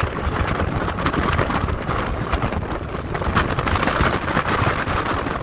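Wind buffeting the microphone of a phone filming from a moving vehicle, a steady rushing noise with road noise underneath.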